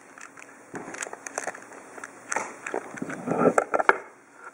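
Handling noise of small metal vaping parts: scattered clicks and scrapes as a rebuildable dripping atomizer is handled on its mod, busiest about three to four seconds in.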